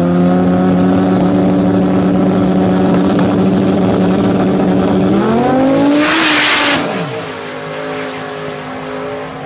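Drag racing Dodge Viper V10 and a second car held at steady high revs on the start line, then launching about five seconds in: the engine note climbs, a loud rush follows, and the sound drops in pitch and level as the cars pull away.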